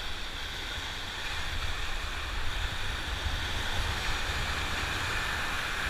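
Whitewater rushing through a river rapid around an inflatable raft, a steady hiss of churning water, with a low rumble of wind buffeting the microphone.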